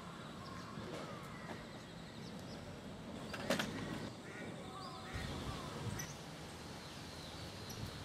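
Outdoor ambience of scattered short bird chirps and call notes over a low steady background rumble, with one sharp click about three and a half seconds in.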